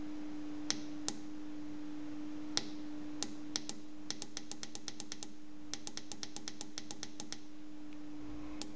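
Push buttons on an STC-3008 digital temperature controller clicking as the setpoint is stepped up. There are a few single clicks, then two quick runs of rapid clicks, over a steady low hum.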